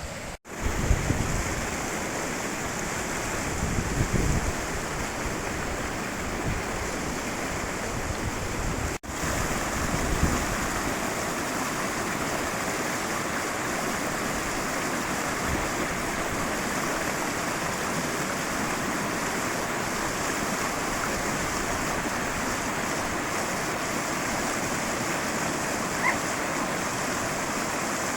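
Mountain river running, a steady rush of water, with low gusts of wind on the microphone in the first ten seconds or so. The sound cuts out for an instant twice early on.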